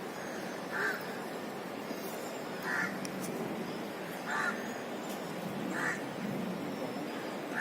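A bird giving short, harsh calls, five of them about a second and a half apart, over a steady background hiss.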